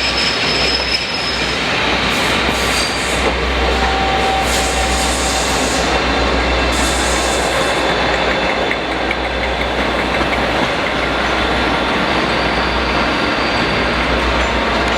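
A train running past on the rails, wheels rumbling steadily with a thin high wheel squeal near the start.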